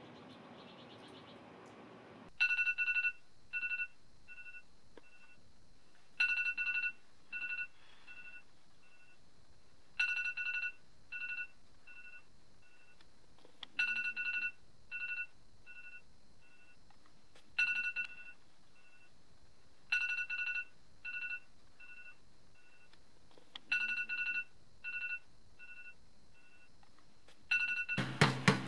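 Electronic ringtone-like beeping, repeating about every four seconds: one long two-tone beep, then three or four shorter, fading repeats of it. Near the end, sharp thumps of a basketball being dribbled begin.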